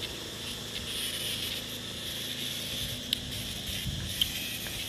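Outdoor background: a steady high hiss over a low rumble, broken by two short clicks about three and four seconds in.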